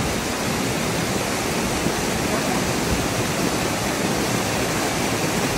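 Small waterfall pouring into a shallow rocky pool: a steady rush of falling water.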